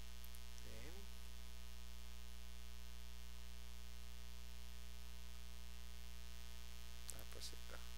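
Steady electrical mains hum with a buzz of evenly spaced overtones, picked up by the recording microphone. About a second in there is one short wordless vocal sound, and a few faint clicks come near the end.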